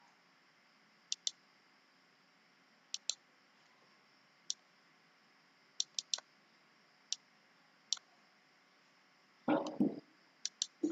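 Sparse, single and paired clicks of keys being pressed one at a time on a computer keyboard, typing out Assamese vowels. A short voice sound breaks in about nine and a half seconds in.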